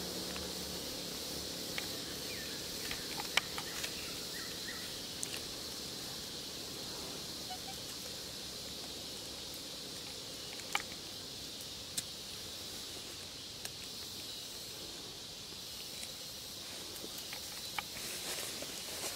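Steady high-pitched insect chorus, with a few sharp clicks and taps scattered through.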